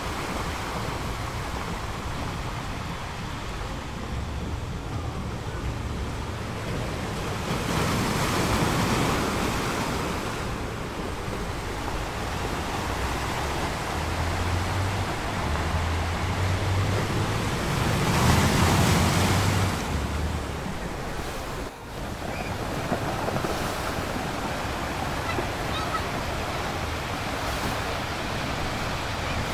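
Small sea waves washing onto a beach in a steady rush, swelling louder twice, with wind rumbling on the microphone.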